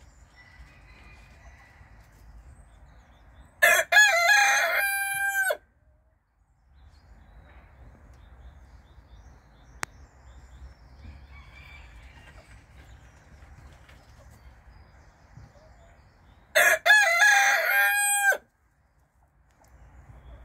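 Feather-footed rooster crowing twice, the crows about thirteen seconds apart. Each crow is a short first note followed by a long held call of about two seconds that drops in pitch at the end.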